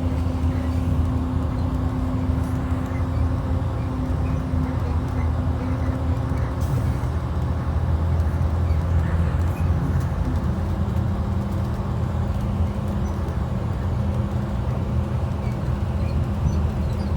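Cabin of a 2012 IC RE school bus on the move, its rear-mounted MaxxForce DT inline-six diesel and drivetrain droning steadily with a deep hum. The engine's note drops about six seconds in and settles at a lower steady pitch from about ten seconds in.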